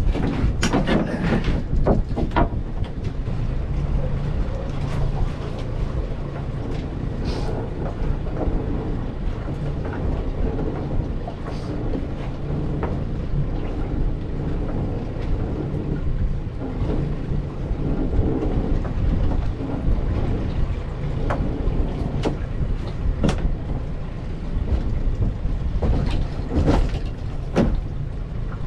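Outboard motor idling as a steady low rumble. Sharp knocks and rattles of crab pots and rope being handled come in clusters at the start and again in the last several seconds.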